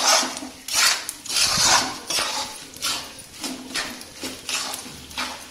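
Metal spatula scraping and stirring through a coarse ghee-roasted wheat flour and edible-gum mixture in a steel kadai, in repeated strokes about twice a second, louder in the first two seconds.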